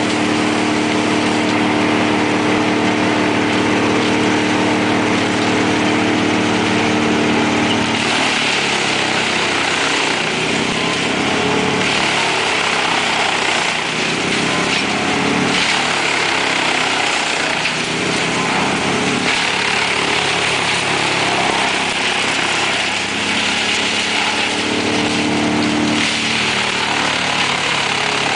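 Large mobile wood chipper running with a steady hum. From about eight seconds in, the harsh, varying noise of branches being chipped takes over as they are fed in. The plain running hum returns briefly near the end.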